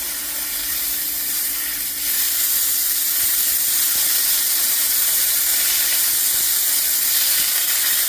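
Sausage patties sizzling in a covered frying pan on high heat, a steady hiss that grows louder about two seconds in.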